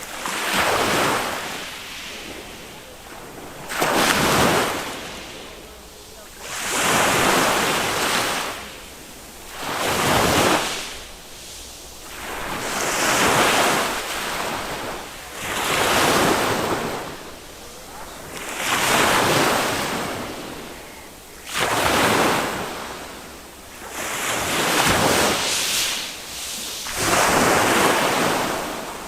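Small waves of a calm Mediterranean sea breaking on a beach, one about every three seconds. Each is a rising rush of surf that fades before the next.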